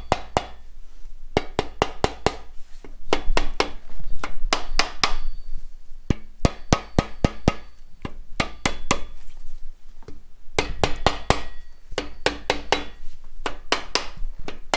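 Rubber mallet tapping the main bearing girdle of a Mitsubishi 4G63 short block down over the crankshaft to seat it. The taps come in quick runs of several, with short pauses between the runs.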